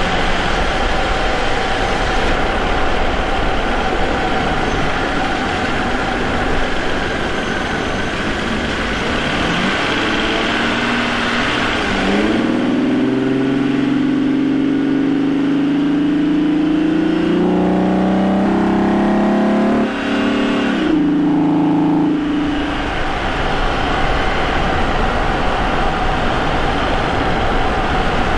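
Vauxhall Omega's 3.2 24-valve V6 (Y32SE) with K&N air filter and custom exhaust, heard close to the intake in the engine bay, running at a steady cruise over road noise. About twelve seconds in, the engine note rises as the car accelerates. There is a short break in the note about twenty seconds in, and then the note settles back to cruising.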